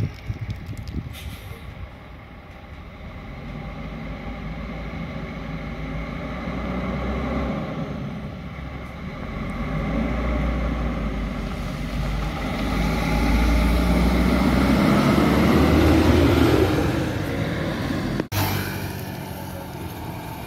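Diesel engine of an intercity coach running as it pulls toward and past, growing steadily louder, its note rising as it accelerates. A sudden break comes near the end, then another coach's engine is heard approaching.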